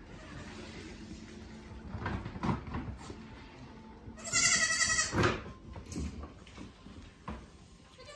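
A baby Nigerian Dwarf goat bleats once, loudly, about halfway through, with a few soft knocks around it. The kid is calling because it is unsettled at being taken away from its mother.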